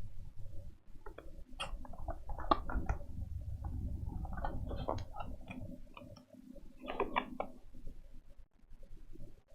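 Keyboard keys being typed on: an irregular run of clacks over a low rumble, with a short pause about six seconds in and a quick flurry of keystrokes just after.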